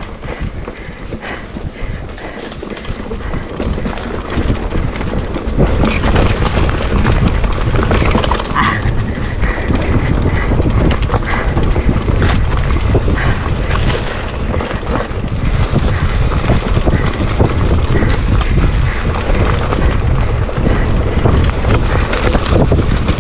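Wind buffeting the bike-mounted microphone over mountain-bike tyres rolling on dirt and dry leaves, with frequent clicks and rattles from the bike on rough ground. The noise grows louder about five seconds in and stays loud.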